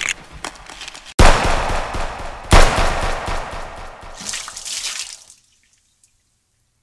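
Two gunshot sound effects about a second and a half apart, each a sudden loud bang with a long fading tail.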